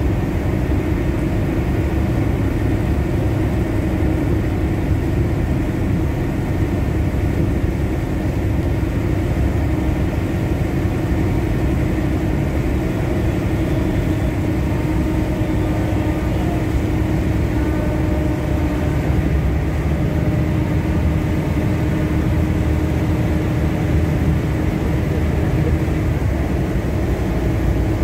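A boat's engine running steadily, a constant low drone, mixed with rushing water and wind noise.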